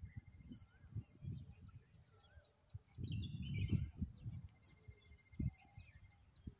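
Wind buffeting the microphone in gusts, loudest about three to four seconds in. Small birds chirp and twitter throughout, with a repeated wavy whistled call near the start.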